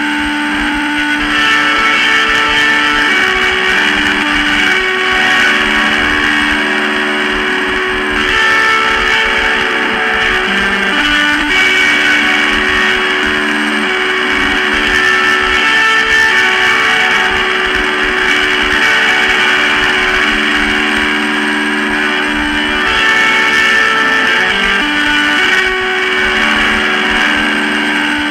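Lo-fi noise-rock guitar music: sustained guitar notes that change every few seconds, over a thick wash of hiss and noise.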